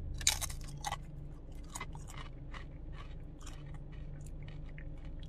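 A Flamin' Hot Nacho Doritos tortilla chip bitten with a sharp crunch just after the start, then chewed with irregular crunching, over a low steady hum.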